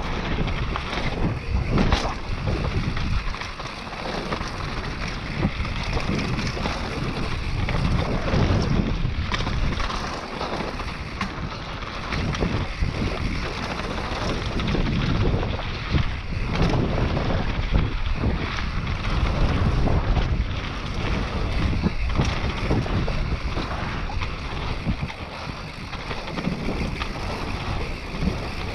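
Wind buffeting the microphone of a mountain biker's camera while riding downhill, surging and easing as speed changes. Tyre noise on the dirt trail and a few short knocks from the bike over rough ground run under it.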